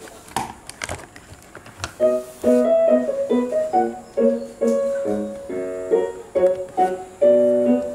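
A few light clicks from plastic toy parts being handled, then piano music with short repeated chords and notes starts about two seconds in.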